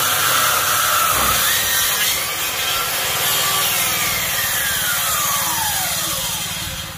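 Handheld electric circular saw cutting lengthwise through a wooden board, running steadily under load; its pitch slowly falls through the second half.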